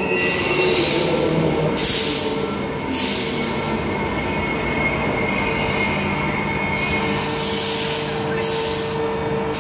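Transperth A-series electric multiple-unit trains standing at the platform, humming steadily, with about five short bursts of hiss and a faint high whistle.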